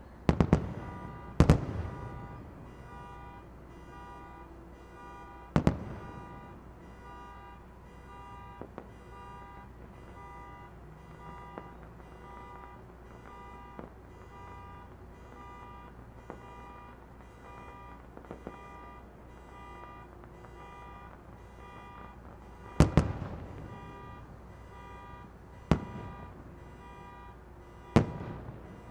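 Distant fireworks shells bursting with loud bangs that echo and rumble away: a cluster in the first couple of seconds, another around six seconds, a lull with a few small pops, then three more bangs in the last six seconds. A steady, rapid beeping runs faintly behind them.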